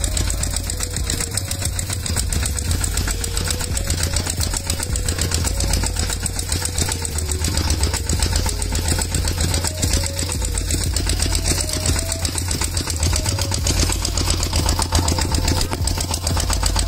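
A motor running steadily, with a deep rumble, a fast even chatter and a faint whine that wavers up and down in pitch.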